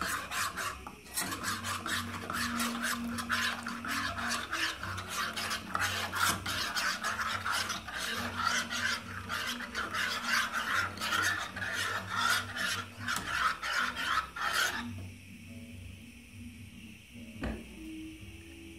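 A metal spoon stirring Turkish coffee in a stainless steel cezve, with quick scraping strokes against the metal pot. The stirring stops suddenly about three-quarters of the way through.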